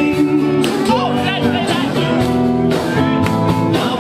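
Music with guitar playing, a steady run of sustained notes and chords.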